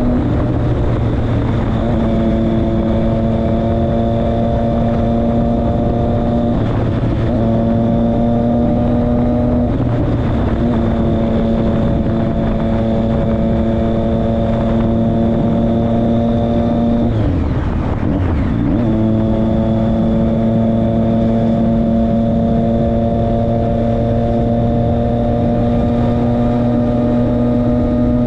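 Motorcycle engine running steadily at highway cruising speed. Its drone breaks off briefly twice in the first ten seconds and for about two seconds past the middle, as the throttle is eased and picked up again.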